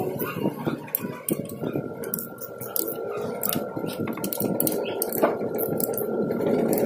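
Socket ratchet clicking and steel tools clinking on a Honda Wave 125's cylinder head as its nuts are run down, in short irregular clicks. A faint steady whine runs in the background, and a broader noise swells near the end.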